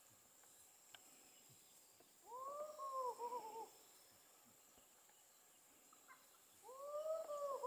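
An animal's call, given twice a few seconds apart: each time one rising-and-falling note followed by a quick run of shorter falling notes.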